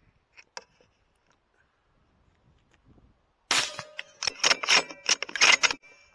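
Handling of a bolt-action .308 Win rifle: a quick run of about a dozen sharp metallic clicks and clacks over a little over two seconds, starting about three and a half seconds in, as when the bolt is worked. A couple of faint clicks come near the start.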